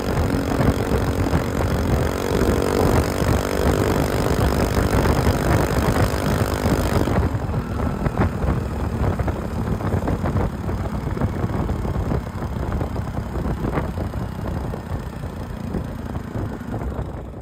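Four-stroke scooter engine running through a straight-through Akrapovič-replica slip-on muffler, heard close at the exhaust while riding. The sound turns duller and slowly quieter from about seven seconds in.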